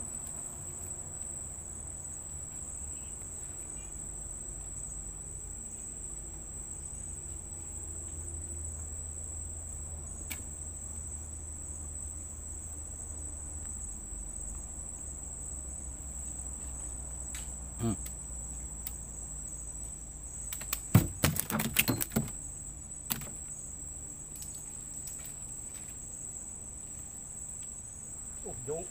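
Night insects such as crickets chirring as one steady high-pitched tone over a low rumble, with a few faint knocks and a brief clatter of clicks about three quarters of the way through.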